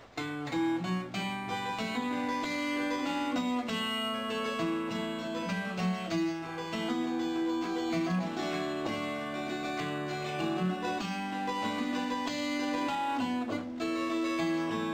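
Acoustic guitar music, a run of picked notes that begins suddenly.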